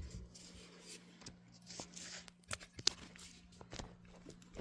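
Faint handling noises: scattered light clicks and rustles, a few sharper ticks midway, over a steady low hum.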